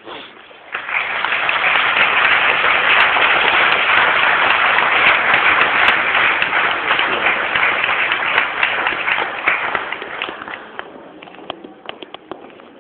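Audience applauding. It starts about a second in, holds steady, then thins out to scattered claps about ten seconds in.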